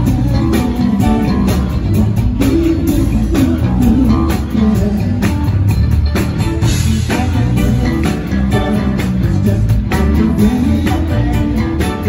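Live funk band playing loud over a steady beat: drum kit, bass and electric guitar, with keyboards, heard through the venue's sound system from the audience.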